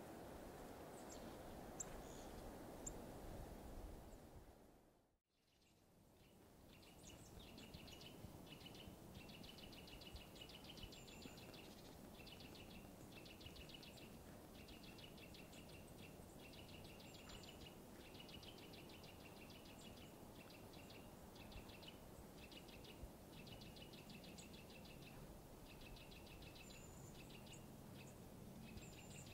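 Faint bird song: a small bird repeating short, rapid trills, each about a second long with brief gaps, and a few thin, high call notes, over a low steady background rush. The sound drops out briefly about five seconds in, and the trills start soon after.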